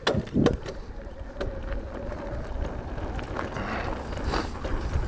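Mountain bike setting off on a dirt trail: a few sharp knocks and clicks from the bike at the start, a thin steady whine for the first couple of seconds, then tyre rumble and rattles building in level, with wind on the microphone.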